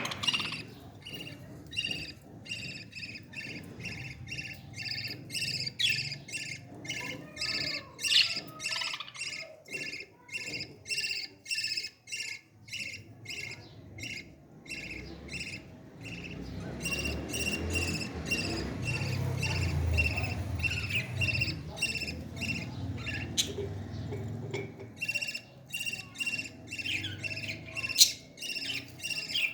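Parrot chicks calling in rapid, repeated short chirps, as they do when begging to be fed. A low muffled rumble runs under the calls for several seconds in the middle.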